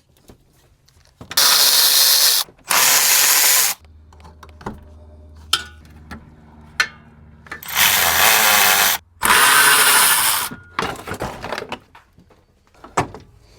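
Handheld power tool run in four bursts of about a second each, in two pairs, working the fasteners while the radiator's fan shroud, hoses and cooler line are taken off.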